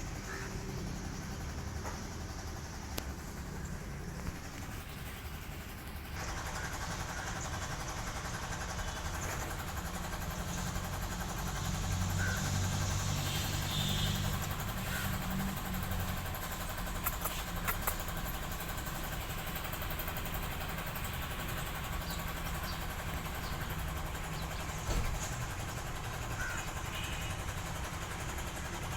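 Kitten purring steadily in a low, continuous rumble that swells a little around the middle.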